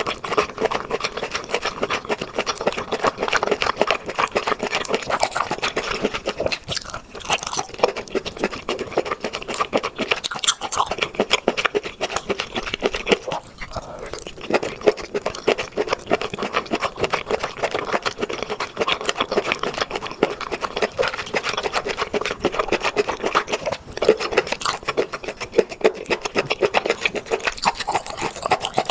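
Close-up chewing of seafood: a steady stream of small crunches and clicks, with a few brief pauses.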